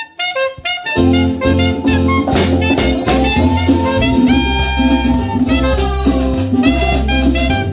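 Saxophone playing a song intro over a backing track of bass and drums. It opens with a few short notes, the groove comes in about a second in, and then comes a long note that slides up and holds before a run of short notes.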